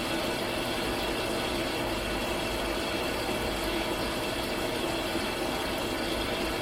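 Water rushing steadily out of an opened pressure relief valve on an Atwood RV water heater, a continuous hiss with a faint hum in it. It cuts off abruptly at the end.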